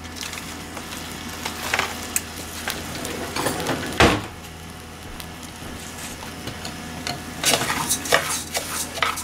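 Israeli couscous toasting in oil in a stainless steel saucepan, sizzling, with one knock about four seconds in. In the last couple of seconds a wooden spoon stirs the grains and scrapes them against the pan.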